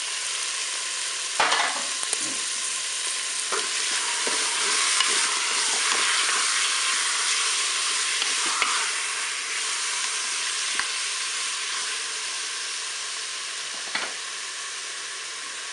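Chicken thighs and onions sizzling in hot oil in the non-stick bowl of a Cookeo multicooker on its browning setting. A wooden spatula stirs them, with a few short knocks against the bowl.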